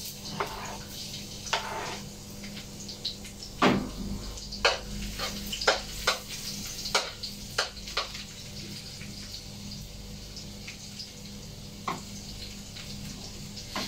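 A metal spatula knocking and scraping in a wok as tofu is stirred in oil. There is a run of sharp clacks between about three and eight seconds in, over a steady low hum.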